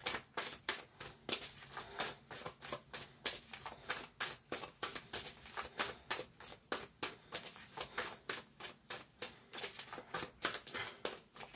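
Tarot deck being shuffled by hand: a quick, fairly even run of soft card slaps and flicks, several a second.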